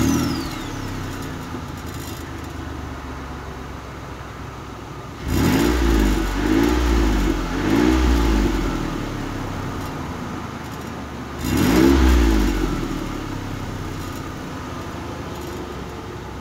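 2005 Mitsubishi Endeavor's 3.8-litre V6 idling just after starting, blipped three times in quick succession about five seconds in and once more about twelve seconds in. The exhaust runs really quiet with no leak: the rusted-through pipe ahead of the muffler is sealed with JB Weld steel stick under hose clamps.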